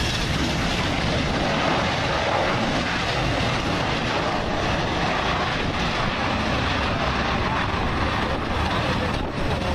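Jet engines of an Air Berlin Airbus A320-family airliner at takeoff thrust during its takeoff roll: a steady, even rushing noise with no distinct tones.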